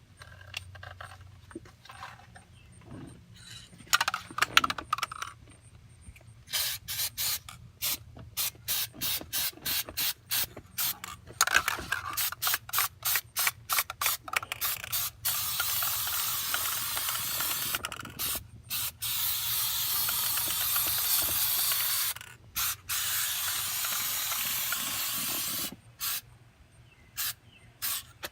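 Aerosol can of 3M Super Trim Adhesive spraying, first in many short hissing bursts of about two a second, then in long continuous sprays, with a few short bursts again near the end. Before the spraying starts there are some knocks and handling noises, loudest about four seconds in.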